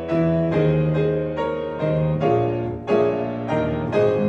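Piano playing a hymn accompaniment in full chords, a new chord struck about every half second and left to ring.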